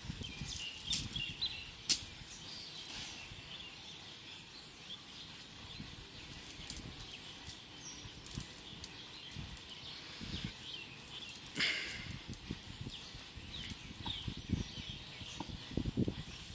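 Birds chirping in the background with many short calls, while a cast net is handled and coiled by hand, giving soft rustles and occasional low knocks, more of them near the end.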